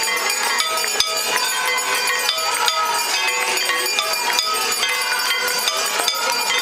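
Many temple hand bells ringing continuously for the Ganga Aarti, with rapid, overlapping metallic strikes and a sustained ringing.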